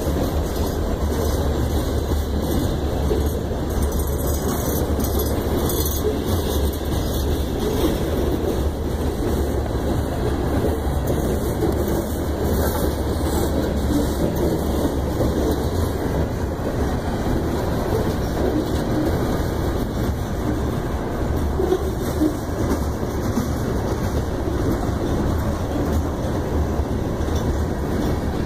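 Freight train of covered hopper cars rolling slowly past at close range: a steady rumble of steel wheels on the rails.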